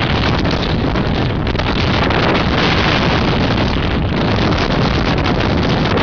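Heavy mountain wind buffeting the camera's microphone: a loud, unbroken rush of noise, swelling in a stronger gust about halfway through.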